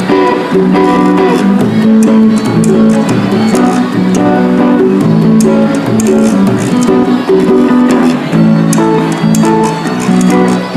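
Music led by plucked string instruments, playing a run of held, changing chords and notes with sharp light clicks over them.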